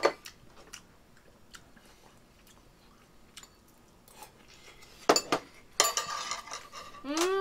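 Eating noodle soup: chopsticks clicking against bowls, with chewing and slurping of udon. There is a sharp click at the start and louder clatter and slurping about five to six and a half seconds in. Near the end comes a short hum that rises and then falls in pitch.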